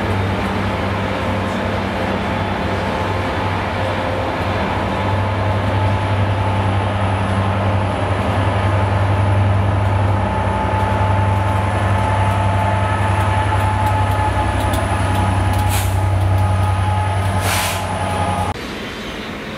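Class 67 diesel locomotive's two-stroke V12 engine running with a steady low drone as it propels a loco-hauled passenger train past, growing louder as it nears. Two short hisses of air near the end, then the engine sound cuts off suddenly.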